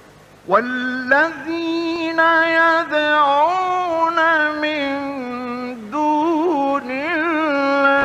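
A male Quran reciter chanting in the melodic mujawwad style, one solo voice. After a brief hush the voice enters about half a second in and holds long, ornamented notes, sliding and quavering between pitches.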